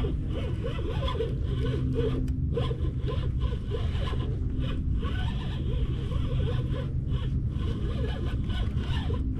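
Fishing reel being cranked steadily, winding in line with a walleye on the hook, a continuous zipper-like whirring.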